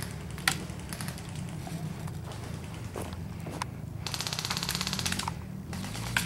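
Airsoft guns firing: a few single sharp snaps, and about four seconds in a rapid full-auto burst of a little over a second.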